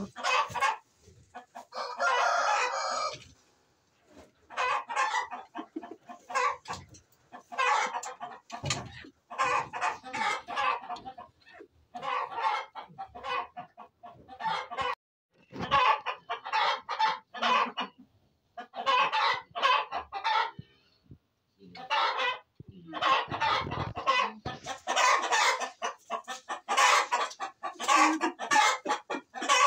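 Chickens clucking in repeated short bursts, with a rooster crowing once about two seconds in.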